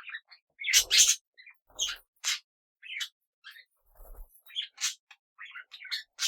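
Small pet parrots chirping and calling in quick, sharp bursts, the loudest a harsh call about a second in, with a few faint low thumps.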